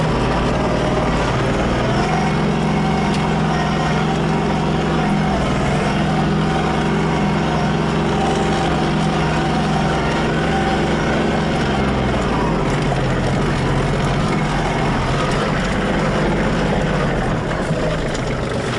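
Tractor engine running steadily under way, heard from the driver's seat; its low note shifts about twelve seconds in.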